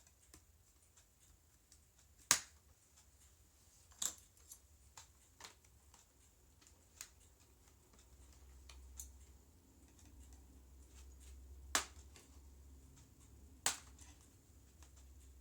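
Plastic clips of a laptop's screen bezel snapping loose as it is pried off, four sharp clicks among lighter ticks of handling.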